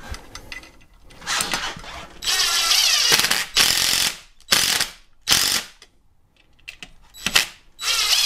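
DeWalt cordless impact driver hammering as it drives the bracket's screws into plugged holes in a concrete wall. It runs in a series of loud short bursts with brief pauses between, the longest about two seconds in.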